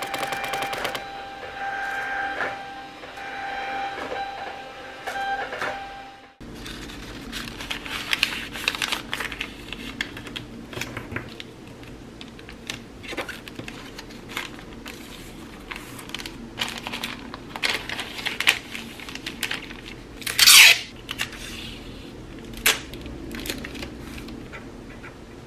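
Thermal label printer printing a shipping label: rapid fine clicking that stops about a second in, then a steady motor whine. Then paper, card and a plastic sleeve rustle and tap on a cutting mat, with one short, loud ripping sound about 20 seconds in.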